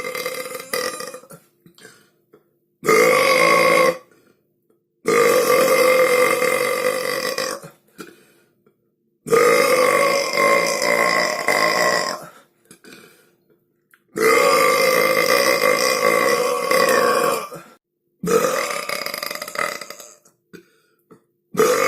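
A person belching: a run of long, deliberate burps of about one to three seconds each, with a steady held pitch and short pauses between them. About six of them begin, with the end of an earlier one at the start.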